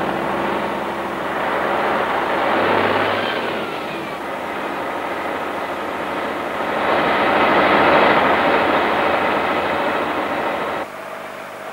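Tatra 813 heavy truck's air-cooled V12 diesel engine running as the truck moves off and drives away under load, swelling louder about two-thirds of the way through. The sound changes abruptly near the end.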